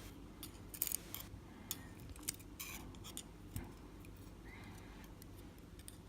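Faint, irregular small metallic clicks and ticks of tiny pin springs and a fitting tool being handled in the pin chambers of a padlock, as the springs are fitted one by one.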